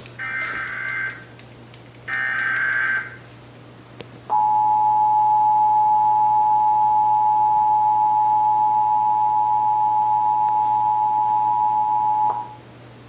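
Emergency Alert System broadcast tones: two one-second bursts of SAME header data, a warbling digital screech, then the two-tone 853/960 Hz attention signal sounding steadily for about eight seconds before cutting off sharply.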